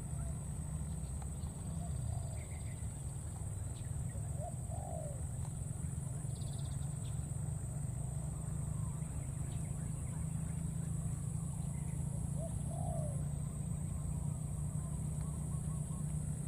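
Three short, soft cooing calls, spread out, over a steady low rumble and a steady high hiss.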